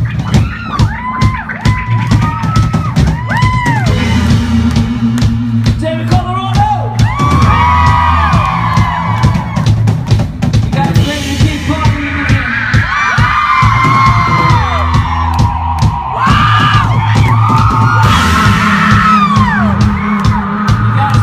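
Live indie rock band playing through a club PA: a drum kit pounds out the beat with bass drum and snare under bass and a higher melodic line whose notes glide up and down.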